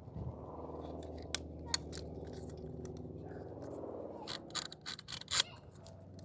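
Light clicks and taps from a plastic dome camera housing and screw being handled and lined up, with a cluster of sharper clicks after about four seconds, over a steady low hum.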